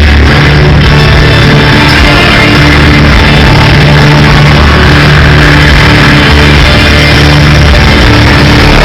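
Loud hardstyle dance music with a heavy, distorted bass, playing steadily without a break.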